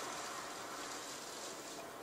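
Storm surf and wind: a steady rushing noise of heavy waves breaking over a rocky breakwater.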